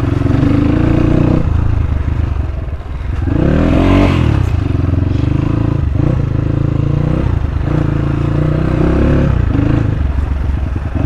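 Dirt bike engine running under a rider's throttle on a rough road: the revs drop and pick up again several times, with one sharp rising rev about four seconds in.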